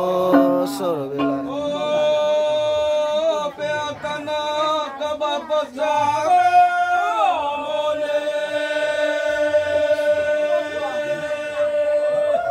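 Singing, with long held notes that slide from one pitch to the next.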